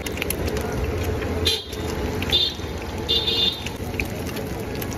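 Busy street noise: a steady traffic rumble with three short, high horn toots about a second apart, the last one longer.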